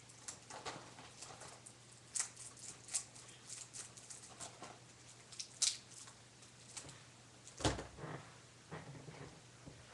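A plastic DVD case being handled and its plastic wrapping picked at: scattered light clicks and crinkles, with one heavier thump about three-quarters of the way through.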